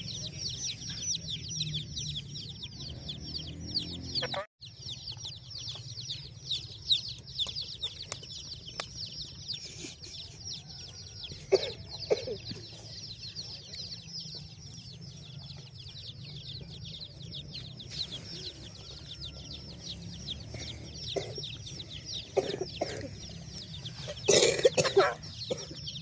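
Many birds chirping rapidly and continuously, with a few louder, harsher calls standing out now and then; the loudest comes near the end.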